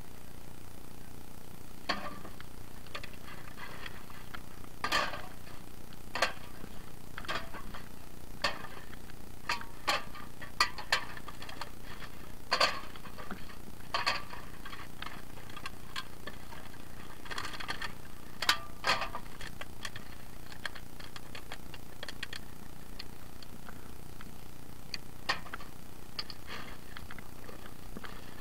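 Rummaging through hard objects: irregular clinks and clatters of items being picked up and shifted, frequent at first and thinning out in the last third, over a steady background hiss.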